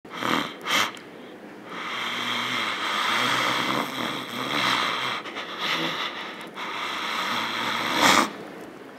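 A man snoring, with two short, loud breath sounds near the start and another near the end.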